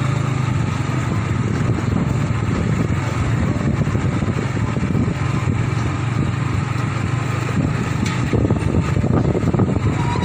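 Motorbike engine running steadily as it is ridden, with continuous rumbling road and wind noise.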